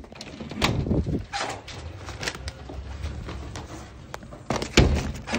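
A front door being opened, handled and pushed shut, with knocks and rattles throughout and a heavy thump of it closing near the end.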